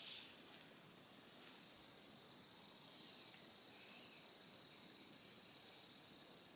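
Steady, faint, high-pitched insect chorus, the continuous trill of crickets or similar insects.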